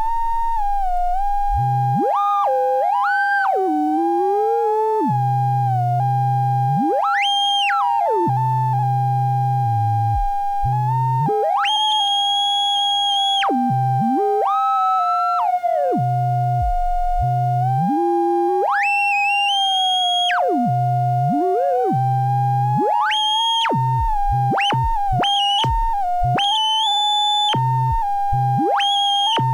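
Two oscillators (VCOs) of a DIY modular synthesizer, their pitch worked by a joystick CV controller: one tone holds nearly steady with small steps in pitch, while the other repeatedly glides up and down over a wide range, from very low to very high.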